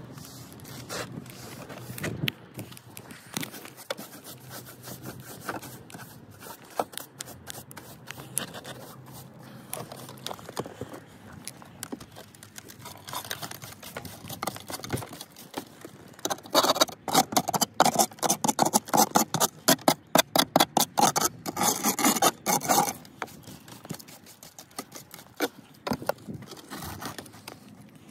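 Stiff-bristled hand brush scrubbing grit and old mortar off lead step flashing and brickwork. The strokes are scattered at first, then a run of fast, louder strokes comes a little past halfway.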